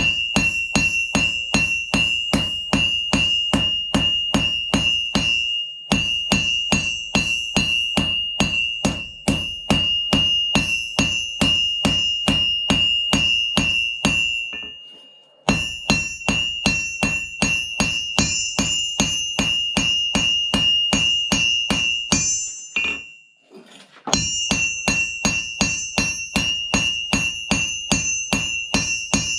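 Hammer striking a blade on a ringing steel anvil in a steady rhythm of about three blows a second, forging the knife. It pauses briefly three times.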